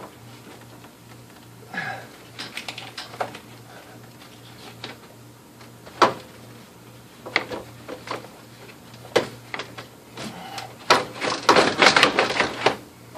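Replacement radiator being worked down into a car's engine bay, knocking and scraping against the lines and body as it goes, with scattered single knocks and a dense run of rattling scrapes near the end. A faint steady hum sits underneath.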